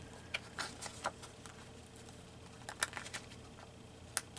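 Paper and book handling at a craft table: a few scattered soft taps and rustles, as a bookmark goes into a book and cut-out pictures are moved about.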